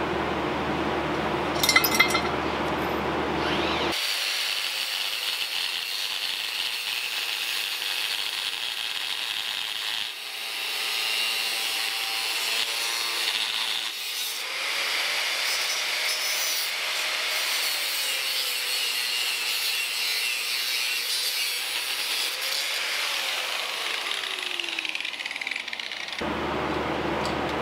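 Angle grinder with a cut-off wheel cutting through a small piece of steel: a steady, high-pitched grind lasting about twenty seconds, its pitch falling near the end as the wheel winds down. A couple of sharp clicks come about two seconds in, before the cut starts.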